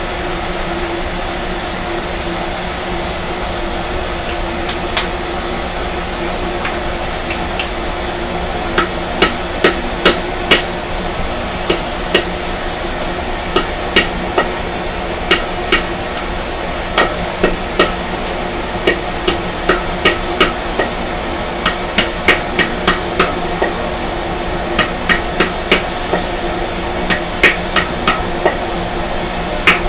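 Small hammer tapping metal in light, quick strokes, starting about nine seconds in and coming in irregular clusters: reshaping a deformed chisel ferrule. A steady mechanical hum runs underneath.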